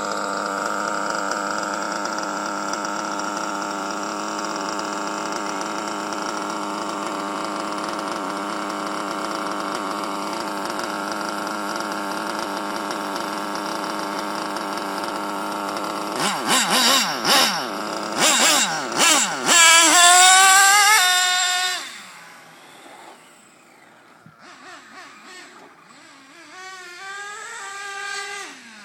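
Small two-stroke nitro (glow-fuel) engine of an HPI Super Nitro RS4 RC car, an RB C5, idling steadily. About halfway through it is revved in a string of sharp blips, the pitch jumping up and falling back. A few seconds later the sound drops off sharply and the engine is heard revving up and down further away as the car drives off.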